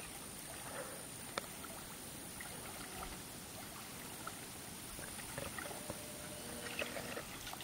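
Faint lapping and small splashes of river water around a slowly swimming person, with scattered light ticks, one sharper click about a second and a half in, and a thin steady high whine.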